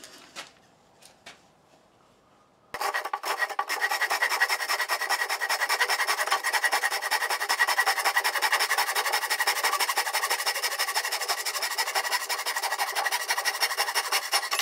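Hand saw, a Japanese pull saw, cutting the end grain of a Douglas fir board with continuous rapid rasping strokes, starting abruptly about three seconds in after a few light knocks of wood on wood.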